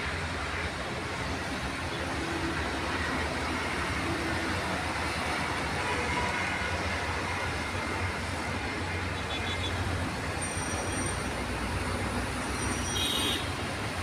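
Steady rumble of city road traffic, mixed with a diesel locomotive approaching in the distance.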